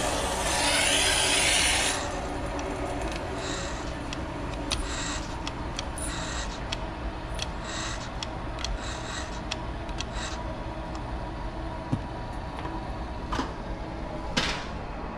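Water hissing through the motorized shutoff valve on a water heater's cold-water supply line, cutting off about two seconds in, followed by scattered light clicks and rubbing as a hand turns the valve's manual knob, with one sharper click near the end.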